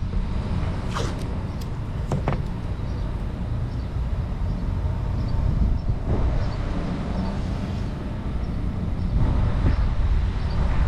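Steady low outdoor rumble of wind and traffic, with a couple of short sharp clicks about one and two seconds in.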